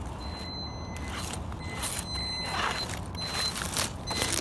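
WLtoys 12428 1/12-scale RC crawler's electric motor whining in stop-and-start spurts as the throttle is worked, with its tyres scrabbling and crunching over dry dirt as it climbs past close by. Low wind rumble on the microphone underneath.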